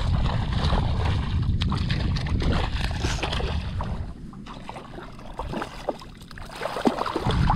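Water sloshing and splashing close to the microphone as a person wades waist-deep through shallow saltwater, in irregular small splashes. Wind rumbles on the microphone for about the first four seconds, then eases.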